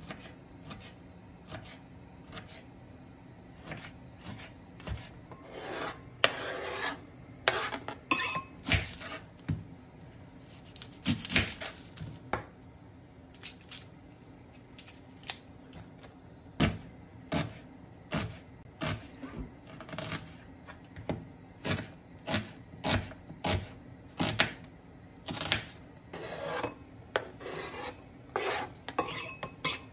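Kitchen knife cutting tomato and red onion on a plastic chopping board: a series of sharp, irregular knocks of the blade hitting the board, mixed with scraping and rubbing sounds. Near the end the knife scrapes the chopped onion off the board into a bowl.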